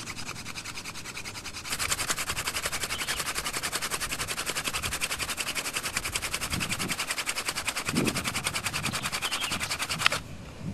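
Hand drill wooden spindle spun hard against a wooden fireboard, a fast, even rasping rhythm of friction strokes that grows louder about two seconds in and stops suddenly near the end. This is the friction that builds up smoking dust into a coal.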